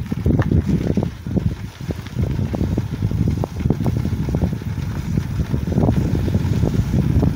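Wind buffeting the microphone of a camera on a moving vehicle: a loud, uneven low rumble with irregular gusty thumps.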